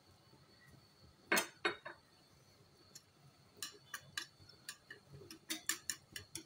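Wire balloon whisk clicking against a steel tray while beating a runny egg, milk and crumbled-cake pudding mix, in quick irregular clicks a few a second through the second half. A couple of sharp knocks come about a second and a half in.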